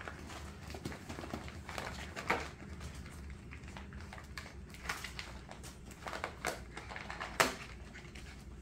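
Scottish Terrier puppies scuffling over puppy pads and a fleece mat: scattered light paw taps, scratches and pad rustles, with a sharper sound near the end the loudest.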